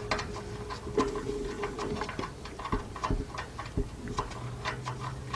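Light, irregular metallic clicks and taps of a nut being fumbled onto an exhaust pipe flange bolt by hand, the nut not wanting to start on the thread.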